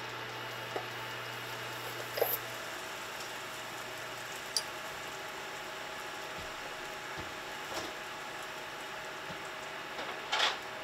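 Butter melting with minced garlic in a stainless steel skillet, sizzling softly and steadily, with a few small pops and a louder crackle near the end.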